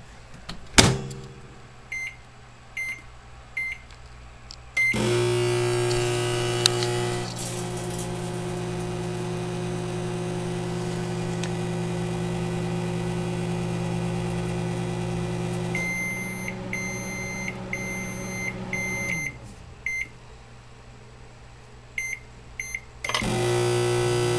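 Microwave oven: a loud clack about a second in, a few keypad beeps, then the oven starts and runs with a steady hum, louder for its first two seconds. It beeps several times and stops about 19 s in, then more keypad beeps and it starts running again near the end.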